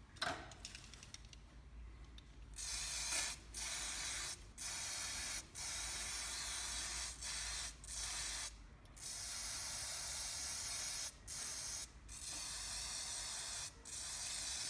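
Aerosol can of tool degreaser being sprayed in about ten hissing blasts with short breaks, starting about two and a half seconds in, as the fan unit of a cordless fencing stapler is degreased.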